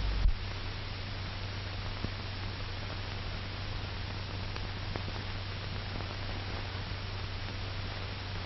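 Steady hiss and low hum of an old 1940s film soundtrack, with a few faint clicks.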